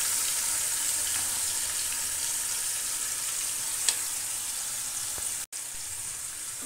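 Yogurt-marinated chicken frying in hot oil in a kadai: a steady sizzling hiss that eases slowly. There is a single light click about four seconds in, and the sound drops out for an instant about a second later.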